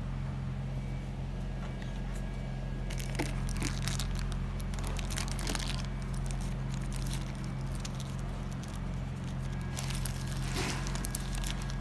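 A steady low hum under scattered rustling, crackling and light clicks from hands handling a plastic carrying case and its foam-packed contents. Most of the handling noise comes from about three to six seconds in and again near the end.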